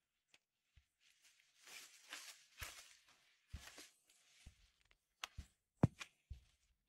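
Komodo dragon walking on sandy ground with dry grass: soft scraping and scuffing of its clawed feet with low footfalls, then a few short sharp taps and knocks about five to six seconds in.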